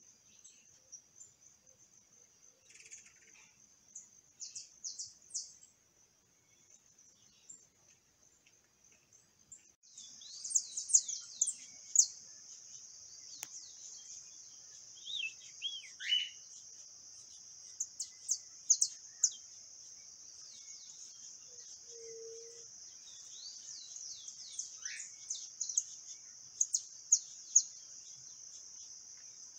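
Saffron finches chirping in quick runs of sharp, sweeping notes over a steady high-pitched insect drone. The drone and the calls grow louder about ten seconds in.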